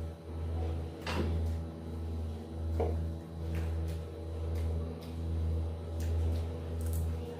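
A person chewing and crunching raw vegetables, with a few crisp bites, over a steady low hum that swells and dips about once a second.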